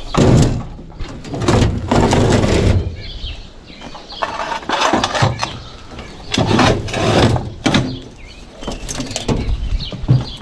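Irregular bursts of clattering and scraping from scrap being handled.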